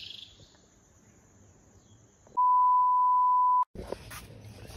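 Electronic beep: one loud, steady pure tone lasting just over a second, starting about halfway in and cutting off abruptly. Faint outdoor background sound comes before and after it.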